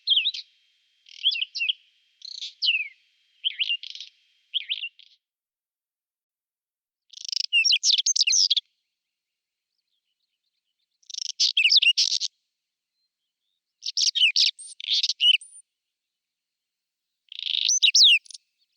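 Whinchat singing: short phrases of quick, rapidly sweeping high notes, several in close succession at first, then four longer phrases spaced a few seconds apart.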